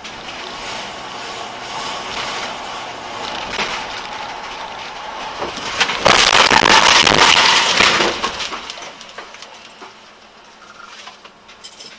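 Car driving with steady road noise, then a collision about six seconds in: a loud crash lasting about two seconds that fades away.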